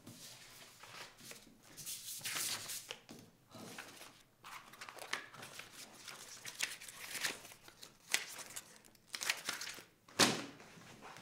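Paper rustling and being rummaged through in a run of short crinkling bursts, with one sharp knock about ten seconds in, the loudest sound.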